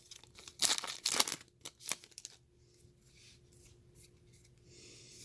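Baseball trading cards being handled and sorted, sliding and rustling against each other in a few quick bursts over the first two seconds, then only faint handling.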